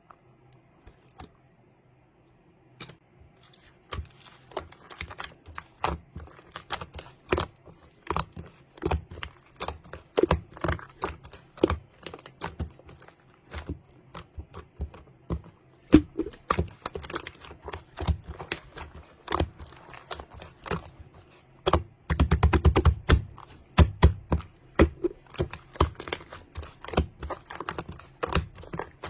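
Rapid, irregular clicking and tapping that starts about four seconds in, with a quick run of very fast taps about three-quarters of the way through.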